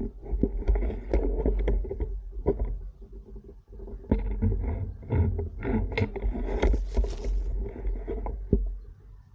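Close rustling and scattered knocks from camouflage foliage and gear moving against the camera, over an uneven low rumble, with a brief hissy rustle about two-thirds of the way through.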